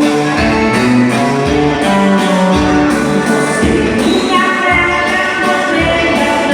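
Dance music playing with a steady drum beat and pitched instrument notes; a singing voice comes in about four seconds in.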